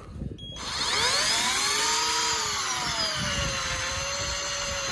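Shimano Force Master 3000 electric fishing reel starting up about half a second in and winding steadily, its motor whine rising at first, then settling lower. It is reeling in line with a squid hooked on the jig rig.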